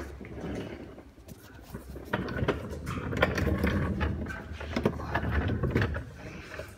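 Rustling handling noise with scattered light knocks and clicks from a handheld camera being moved around, quiet at first and louder from about two seconds in.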